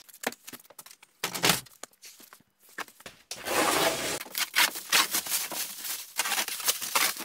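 Plastic stretch wrap on a pallet being pulled and torn open by hand, a continuous crinkling and rustling that starts about three seconds in, after a few scattered knocks and clicks.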